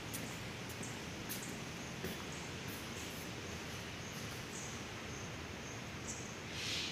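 Steady outdoor background hiss with faint, short high chirps from small birds repeating every half second or so, and a brief louder hiss near the end.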